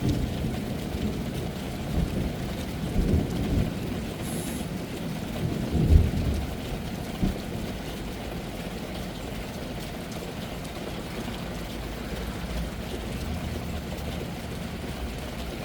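Thunderstorm recording: rain with rolling thunder, rumbling in several surges through the first half, loudest about six seconds in, then settling to a steadier low rumble.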